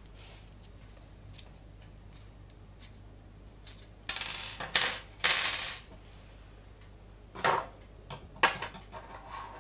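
Metal clinking and jingling: a bright burst lasting about two seconds, starting about four seconds in, followed by a knock and a few lighter clicks.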